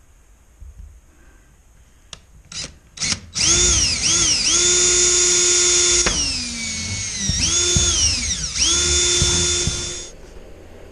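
Handheld power drill drilling a small pilot hole up through OSB roof decking. A few short trigger blips come first, then the motor whines at full speed, slows under load for a moment past the middle, speeds back up, and stops about a second before the end.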